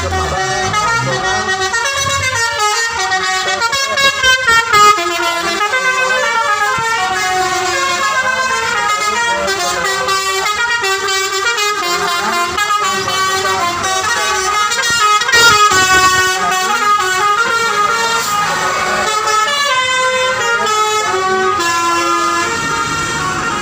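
Bus telolet horns, multi-tone Basuri air horns, playing quick melodic runs of stepping notes, several horns overlapping from buses in a convoy. Louder blasts come about four seconds in and again around fifteen seconds.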